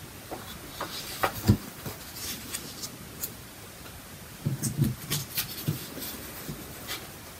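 Quiet room tone with a few scattered small clicks and soft rustles, and a cluster of brief low sounds about halfway through.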